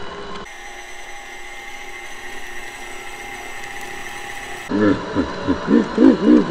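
KitchenAid stand mixer's motor driving its meat-grinder attachment, running with a steady whine as it grinds cubed beef short rib and bacon. Near the end a louder voice-like sound, rising and falling in pitch, comes in over it.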